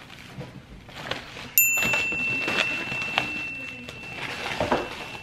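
A thin plastic bag crinkling and rustling as it is handled and pulled off an item. About a second and a half in, a steady high-pitched tone starts and holds on.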